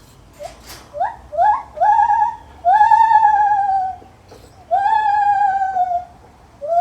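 Lar gibbon calling: a run of whooping hoots that starts with short, steeply rising notes and builds into long held notes, each rising quickly and then sliding slowly down with a slight waver. A shorter rising hoot comes near the end.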